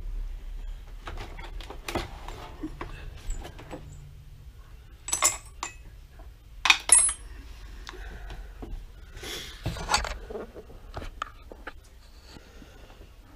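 Metal hand tools clinking and clattering as they are handled and set down, with irregular knocks and a few sharp, ringing metal clinks about five and seven seconds in.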